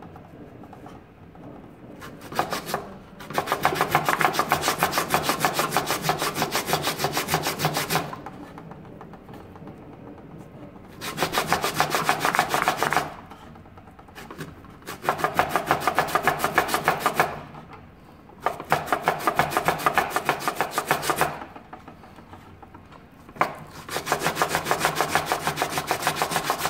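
Raw beetroot being grated on a metal box grater: rapid rasping strokes in five spells of two to five seconds each, with short pauses between.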